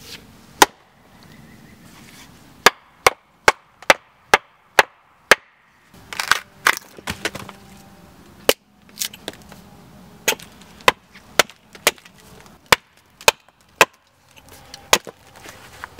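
An axe striking into the side of an upright log in a series of sharp knocks, often about two a second, with a short stretch of crackling wood about six seconds in as a slab splits away.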